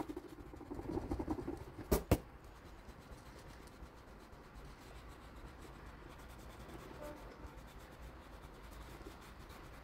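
Eraser rubbing on drawing paper, clearing away pencil construction lines, with stroke-like rubbing early on and two sharp clicks about two seconds in; after that the rubbing is faint.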